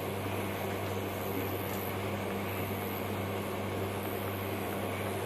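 Induction cooktop running with a steady hum and hiss under a pan of tamarind and mint water that is heating toward a boil.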